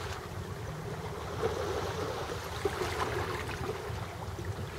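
Small waves lapping against shoreline rocks, over a steady low rumble.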